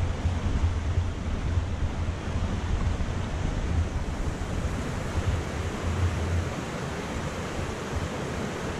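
Wind buffeting the microphone: a steady rushing noise with uneven low rumbling gusts.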